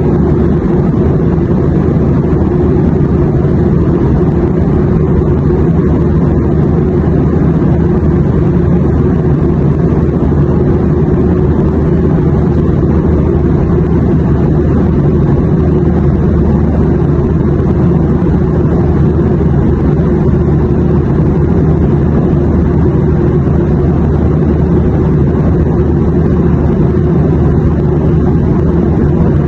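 Steady low rumbling drone of an airplane in flight, even and unchanging throughout.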